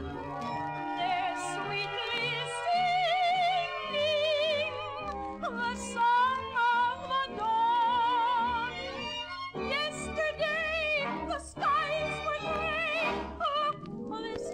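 Woman singing high in an operatic style with wide vibrato and sliding pitch, over orchestral accompaniment, in a 1942 shortwave radio broadcast recording.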